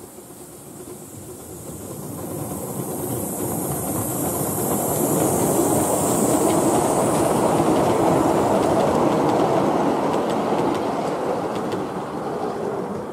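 A 7¼-inch gauge miniature steam locomotive hauling a train of passenger carriages past, its wheels rumbling and clicking over the rail joints. There is a high hiss as it approaches. The sound builds, peaks midway and fades as the train goes by.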